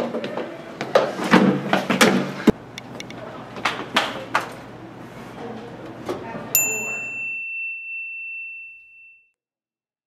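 Sharp knocks and clatter of plastic at a plastic recycling bin over a steady low hum. About six and a half seconds in, a single bright ding rings out and fades over about two and a half seconds, as the room sound cuts off.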